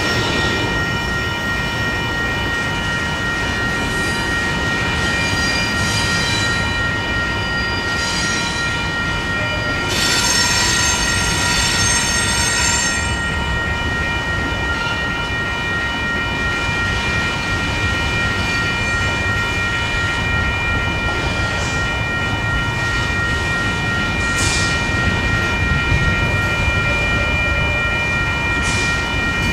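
Union Pacific freight train of covered hopper cars rolling past, wheels running on the rails with a steady rumble. A steady high-pitched ringing tone runs through it, and higher squealing flares up twice in the first half.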